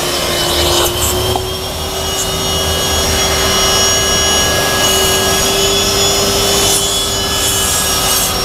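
Wet-and-dry vacuum running steadily with a constant whine, its upholstery nozzle rubbing across a damp fabric car seat to suck out cleaning foam and lifted dirt.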